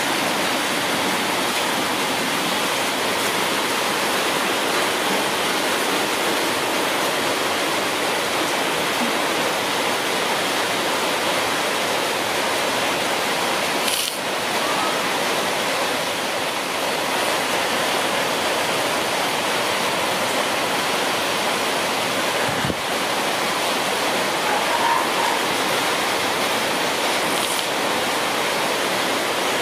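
Steady, even rushing noise like running water, with no distinct events in it.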